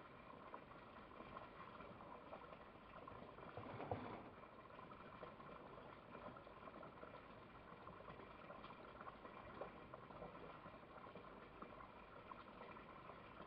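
Near silence: a faint, steady background hiss, with a brief soft rustle about four seconds in.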